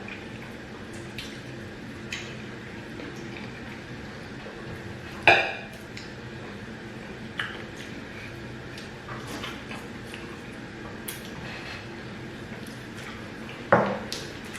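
Bowls and plates clinking and knocking as a meal is eaten: scattered light clicks, with two sharper clinks about five seconds in and again near the end.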